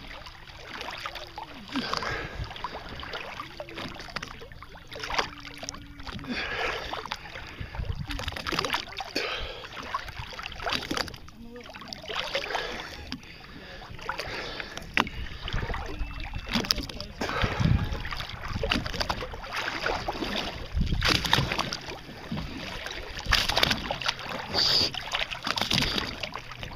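Sea water sloshing and splashing around a waterproof camera held at the surface, with irregular slaps of small waves close to the microphone.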